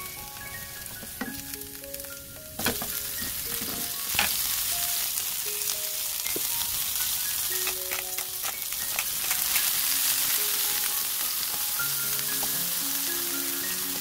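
King oyster mushroom slices sizzling in hot olive oil in a frying pan, the sizzle growing louder about two and a half seconds in and again around four seconds, with a few sharp clicks. Soft background music plays along.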